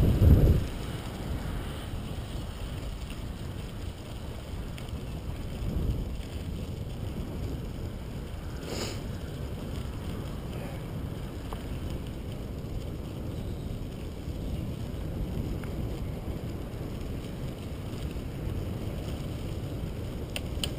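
Steady low rumble of wind buffeting the microphone and bicycle tyres rolling over a crushed-stone trail, louder for a moment at the start.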